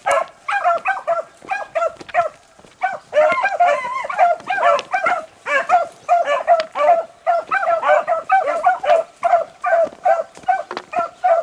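Beagles baying on a rabbit's scent line, a steady run of short ringing calls, a few a second, sometimes overlapping. This is hounds giving tongue while they carry the track.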